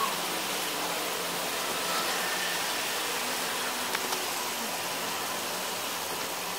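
Steady hissing background noise of a car service bay, with a faint click about four seconds in.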